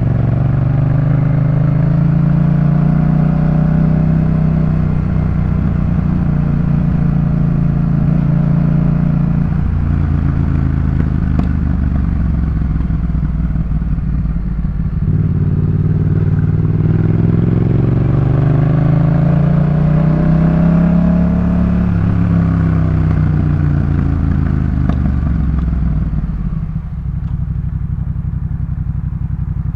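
Yamaha MT-07's parallel-twin engine running through a Jeskap K4 full aftermarket exhaust. Engine speed climbs and holds for several seconds, drops about ten seconds in, climbs again from about fifteen seconds, then falls back to a lower steady note near the end.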